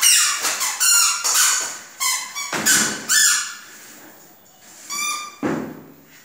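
A toddler squealing in a run of high-pitched shrieks, pitch bending up and down, with a pause of about a second near four seconds in before more squeals.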